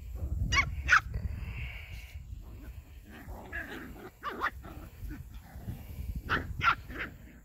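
Puppies play-fighting and giving short, high-pitched yips and barks: two near the start, one in the middle, and three in quick succession near the end, over a low rumble.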